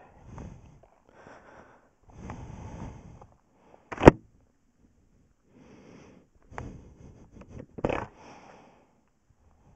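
Heavy breathing close to the microphone inside a motorcycle helmet, coming in noisy bursts every second or two. There is a sharp knock about four seconds in.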